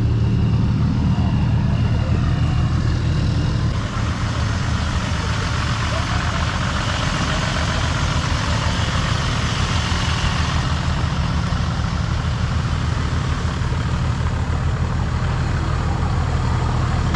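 Four-wheel-drive engine idling steadily, with a hiss of noise rising over it for several seconds through the middle.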